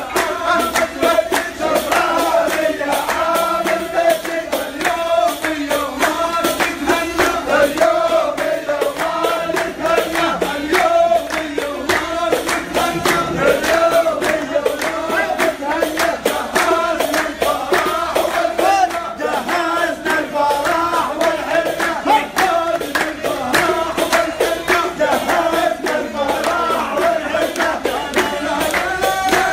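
A group of men singing a celebratory song together in chorus, with steady rhythmic hand clapping.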